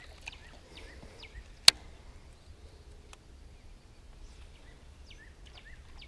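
Birds chirping over and over in short, high calls, with one sharp click about a second and a half in that stands out as the loudest sound.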